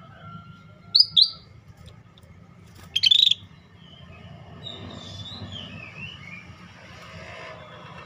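Scaly-breasted bulbul (cucak bersisik) calling: two sharp high notes about a second in, a louder short note near three seconds, then softer warbling phrases. A steady low hum runs underneath.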